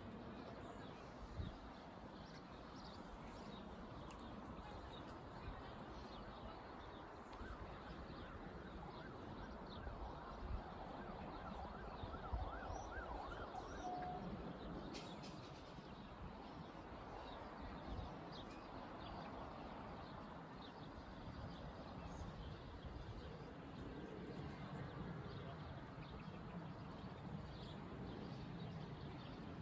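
Distant town and countryside ambience heard from high above: a steady, faint murmur with low rumble beneath and scattered bird chirps, loudest around the middle.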